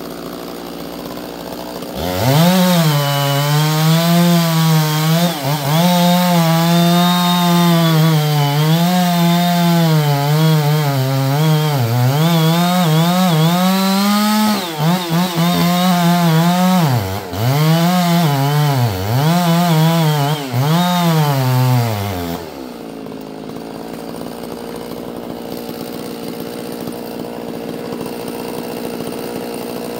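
Two-stroke chainsaw revved to full throttle about two seconds in and cutting wood for some twenty seconds, its pitch wavering under load and dipping sharply several times before it rises again. About twenty-two seconds in it eases off to a lower, steadier running sound.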